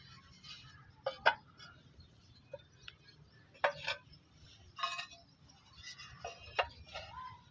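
Fired clay barrel roof tiles clinking and knocking against one another as they are set down and slid into overlapping rows. The sound is a few separate sharp clinks, the loudest a little over a second in.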